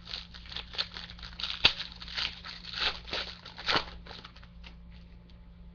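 Crinkling and rustling of a trading-card pack wrapper and baseball cards being handled, with sharp clicks about a second and a half in and near four seconds. It dies down after about four seconds.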